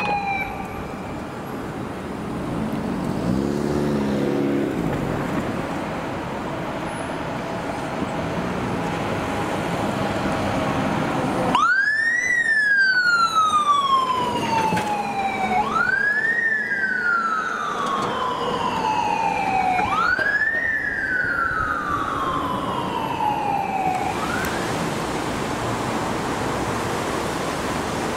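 Fire engine siren on a Scania fire truck passing by. It gives four sweeps about four seconds apart, each rising quickly and then falling slowly, over steady traffic noise. Before the siren starts, about eleven seconds in, there is only city street noise.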